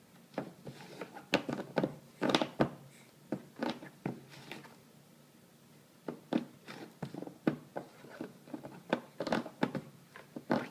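Toco toucan playing inside a fabric-covered sewing box, its bill knocking and rattling against the box in irregular sharp clicks and thunks, some in quick clusters.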